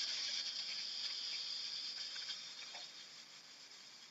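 Khalil Mamoon Cheops hookah being purged: a long hiss of air blown back down the hose, pushing the stale smoke out of the base through the purge valve. Loudest at first, then fading away over about four seconds.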